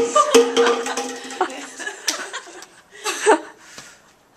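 Women laughing and chuckling, with a few sharp knocks in the first couple of seconds.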